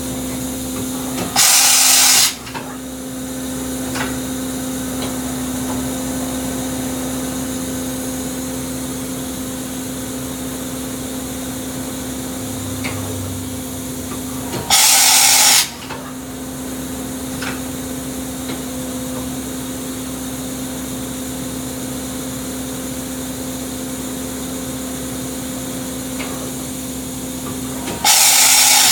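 Kitamura Mycenter 3Xi machining center running with a steady hum and whine. It is broken three times, about every 13 seconds, by a loud hiss of about a second, during which the steady tone drops out.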